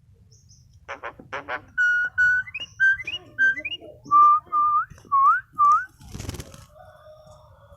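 Starling (jalak) whistling: a few short harsh notes, then a run of about eleven clear whistled notes, some held level and some sliding upward at the end. A brief noisy rustle follows about six seconds in.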